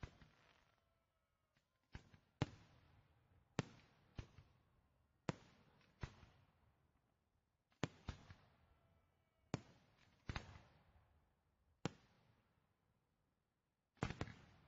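Fireworks shells bursting in the sky: about a dozen sharp bangs, one to two seconds apart, some in quick pairs, each trailing off in a fading echo, with a close double bang near the end.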